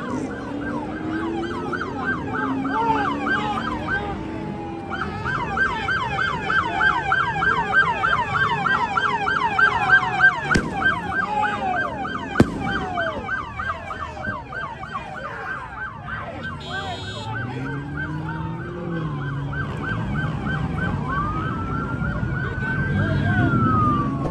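Police car siren on a fast yelp, several sweeps a second, changing to a slow rising and falling wail near the end. Engines rev underneath, and there are two sharp knocks midway.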